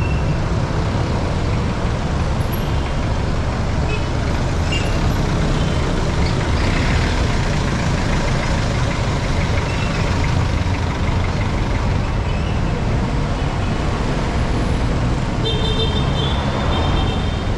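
Busy street traffic: jeepney, car and motorcycle engines running close by in a steady rumble. A high-pitched horn sounds for about two seconds near the end.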